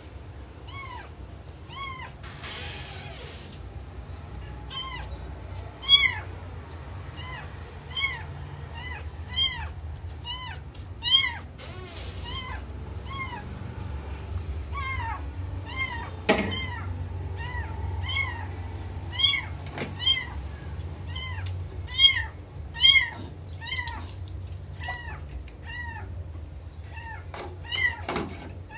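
Small black kitten mewing over and over, short high mews that rise and fall, one or two a second. A single sharp knock about halfway through.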